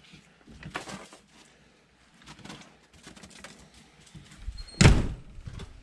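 A door being opened to let a dog in, with a few scuffles and knocks as the dog comes through, then the door shut with a loud thud near the end.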